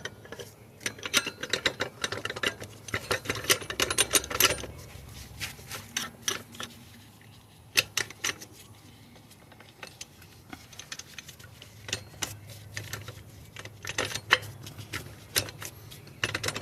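Small metal parts clicking and clinking as a pit bike's rear axle, spacers and chain adjuster are fitted: a dense run of quick clicks in the first few seconds, then scattered clinks, with another cluster near the end.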